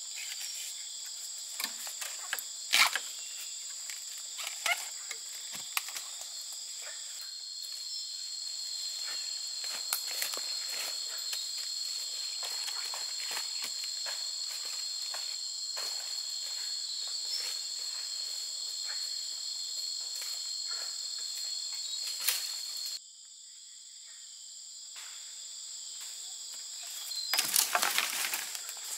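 A steady chorus of shrilling insects, with a thin high whine joining about a quarter of the way in. Scattered sharp clicks and knocks sound over it. About three-quarters through, the chorus drops away suddenly and then builds back, and a loud burst of rustling and crackling comes near the end.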